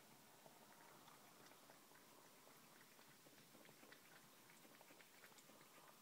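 A cat lapping milk from a saucer: faint, soft wet clicks of the tongue, several a second, irregular.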